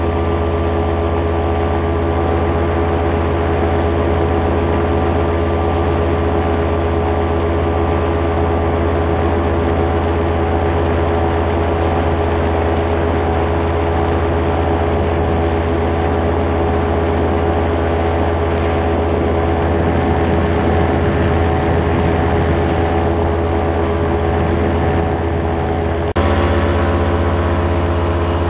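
Paramotor engine running steadily in powered paragliding flight, holding one even pitch; near the end it jumps suddenly to a slightly different, steady note.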